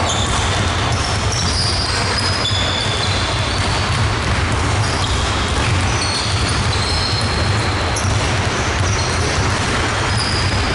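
Many basketballs being dribbled at once on a wooden gym floor, a dense, steady patter of overlapping bounces, with frequent short, high sneaker squeaks.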